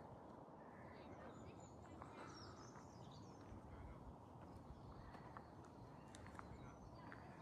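Near silence: faint outdoor ambience with a low steady rumble, distant small birds chirping now and then, and a few soft clicks.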